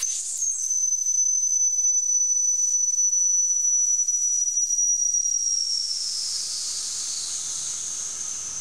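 Wilesco D6 toy steam engine's boiler venting its remaining steam pressure as a high, steady whistling hiss. After about five seconds the pitch drops and the hiss weakens as the pressure runs down, at shutdown after the fire is out.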